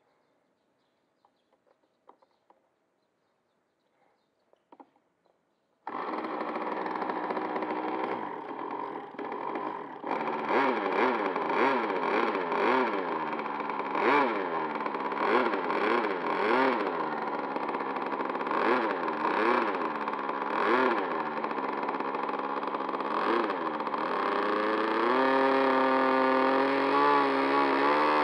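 Near silence with a few faint clicks, then about six seconds in a Thunder Tiger Pro 46 two-stroke glow engine with a tuned pipe starts and runs at low speed. Its pitch rises and falls over and over, roughly once a second, before settling steadier near the end.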